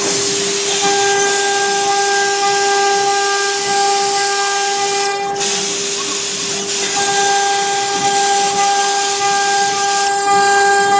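CNC router's 3 kW water-cooled spindle running steadily with one constant whine while the bit engraves MDF, over a hiss of cutting. A second, higher whine drops out about five seconds in and comes back about two seconds later.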